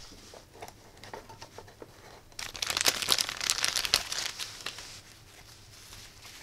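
Clear plastic parts bag crinkling loudly as it is handled and opened, starting about two and a half seconds in and easing off into quieter rustling, after a few faint clicks of small metal parts.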